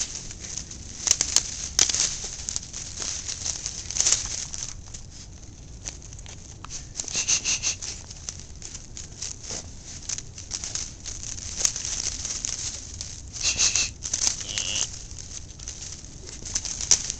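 Jack Russell terriers rummaging through a pile of dry sticks and dead leaves: twigs crackle and snap and leaves rustle in irregular bursts, with the loudest snaps about a second in and near the end. A few brief high squeaks come in at about seven seconds and again around thirteen to fourteen seconds.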